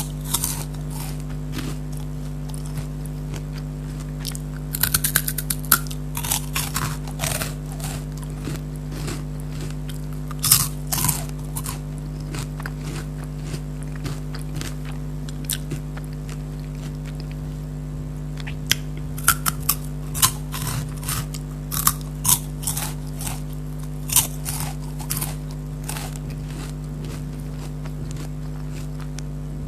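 Close-up crunching and chewing of Kurkure corn puff snacks. Crisp bites come in clusters with quieter chewing stretches between, over a steady low hum.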